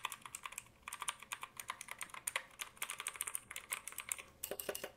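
Typing on a C3 Tech KGM 1200 full-size mechanical keyboard with blue switches: a fast run of sharp, clicky keystrokes, the noisy sound typical of blue switches.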